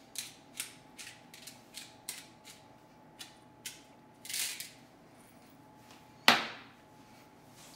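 Hand-twisted pepper mill grinding pepper in a run of short crunchy clicks, about two or three a second, ending after about four and a half seconds. About six seconds in a single sharp knock, the loudest sound.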